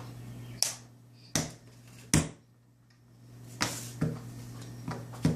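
Play-dough being patted and pressed flat by hand on a hard surface: about seven sharp, irregular knocks and taps.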